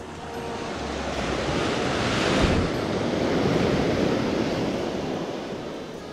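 Ocean surf breaking on a sandy beach and washing up the shore, swelling to a peak about two and a half seconds in and then slowly fading as the wash spreads out.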